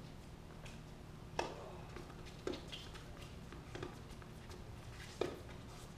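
Tennis ball being struck and bouncing on a hard court: sharp single pops about a second apart, over a steady low hum.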